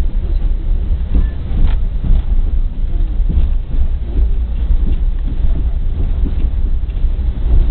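Passenger train running at speed, heard from inside the carriage: a heavy, rough low rumble of the coach on the rails, with a few faint wheel clicks over rail joints.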